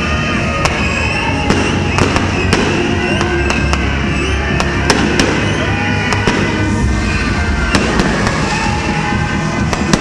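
Aerial fireworks going off in quick, irregular succession: a dozen or more sharp bangs and crackles over a continuous background of music.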